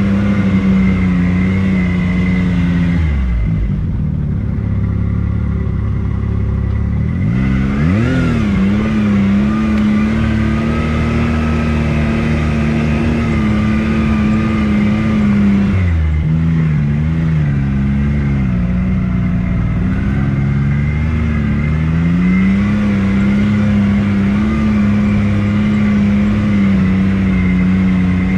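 Off-road vehicle engine running steadily on a trail. The revs drop about three seconds in, climb back about eight seconds in, then dip and rise again several times before settling steady.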